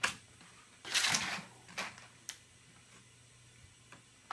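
Clear plastic toy packaging being handled: a sharp clack, then a half-second crackling rustle about a second in, followed by a couple of light clicks.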